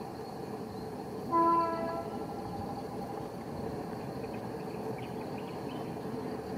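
Electric locomotive's air horn sounding one short blast about a second and a half in, over the steady rumble of the train running.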